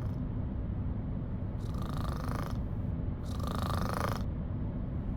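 Snoring: two drawn-out snores about a second and a half apart, each lasting about a second, over a low steady rumble.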